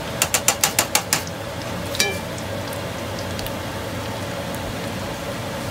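Oil sizzling steadily as lumpia deep-fry in a pan. In the first second there is a quick run of about seven clicks from metal kitchen tongs, and one sharper click about two seconds in.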